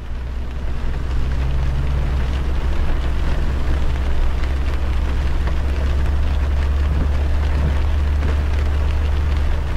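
Rain striking a moving car, with tyre hiss on the wet road and a steady low drone of the car driving, rising over the first second.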